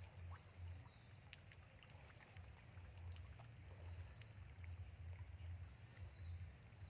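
Faint outdoor ambience: a low, uneven rumble that swells and fades, with scattered faint clicks and ticks.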